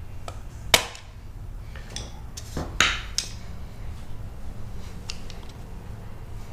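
Hammer striking a screwdriver used as a center punch on a steel caster plate, marking hole positions for drilling: two sharp metallic strikes about two seconds apart, with lighter clinks of metal tools between and after.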